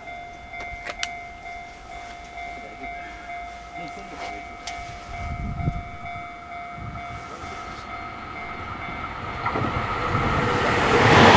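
Electric passenger train approaching on the near track, its running noise growing steadily louder over the last two seconds or so. Before that there is a steady high whine with a few sharp clicks.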